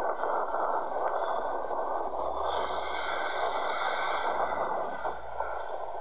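Steady rushing noise of a Boeing 787's jet engines as the airliner rolls along the ground, with a fainter higher whine that swells in the middle and fades again.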